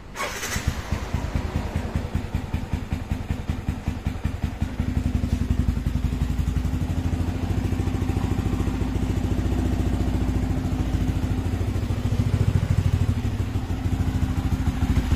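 Yamaha WR 155's single-cylinder, liquid-cooled 155 cc engine is electric-started and catches at once, then runs at idle. About five seconds in it settles into a louder, steadier idle.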